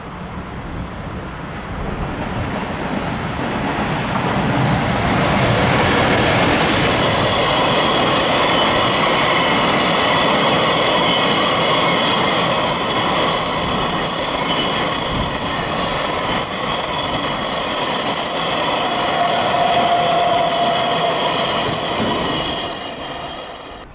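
Freight train 3090, hauled by an EF210 electric locomotive, passing close by as a long string of empty oil tank wagons rolls past. The noise builds over the first few seconds, then holds loud and steady, with high wheel-squeal tones running through it. It drops away sharply shortly before the end as the last wagon clears.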